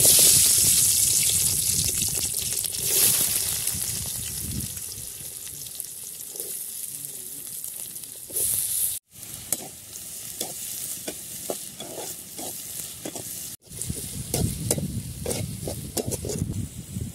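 Garlic cloves sizzling in hot oil in an aluminium kadai, loudest as they hit the oil and slowly dying down, with a second burst of sizzling about three seconds in. Later a metal spatula scrapes and stirs chopped onions and tomatoes frying in the pan, in short repeated strokes.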